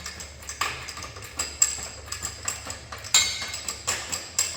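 Steel axle parts and hand tools clinking and tapping irregularly, with sharper metal knocks about one and a half and three seconds in, over a low steady hum.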